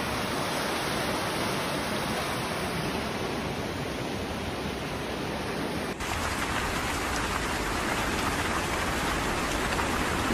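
Heavy rain falling, a steady hiss. About six seconds in it cuts to another recording of much the same downpour.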